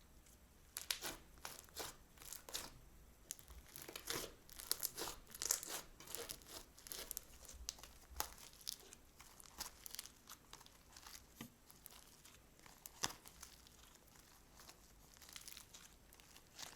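Crunchy slime being squeezed and worked by hand, giving dense crackling and popping that thins out about halfway through, with one sharper pop later on.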